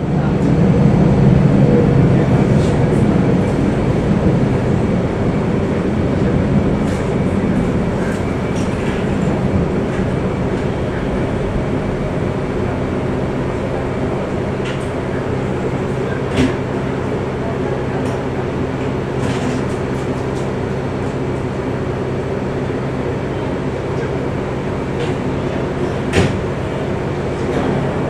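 Interior noise of a 485-series electric train. The running rumble is loudest at first and eases over several seconds to a steady hum as the train slows for an emergency stop. Two sharp clicks come, one about halfway and one near the end.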